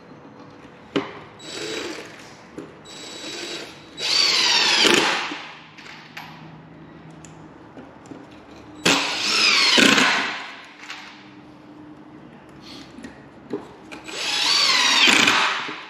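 Cordless drill-driver driving screws through plywood gussets into timber: a few short bursts of the motor, then three longer runs, each lasting about a second and a half, as screws are sunk home.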